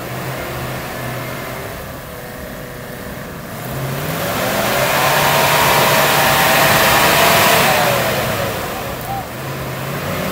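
Land Rover Defender engine pulling hard under load while towing a stuck vehicle through deep mud. It revs up about a third of the way in, peaks in the middle with tyres churning the mud, then eases back.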